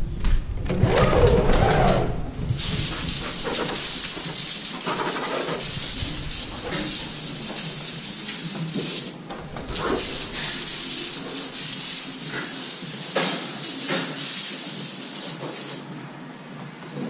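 Garden hose spray nozzle jetting water onto rubber boots and the wet floor: a steady hiss that cuts out for a moment about nine seconds in, starts again, and stops near the end.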